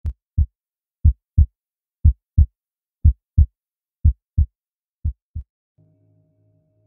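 Heartbeat sound effect: a low double thump about once a second, six beats, the last one fading. A faint low steady drone comes in near the end.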